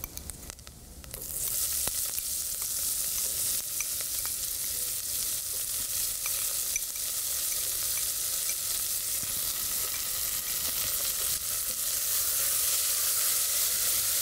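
Chopped onion going into hot oil with frying diced salami in a stainless steel pot. About a second in the sizzle jumps up sharply and carries on steadily with small pops and crackles, growing a little louder near the end as it is stirred.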